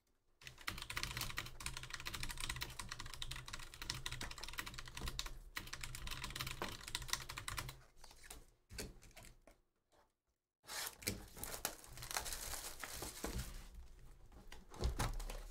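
Rapid typing on a computer keyboard, pausing for a couple of seconds about two-thirds through and then resuming, with a low thud near the end.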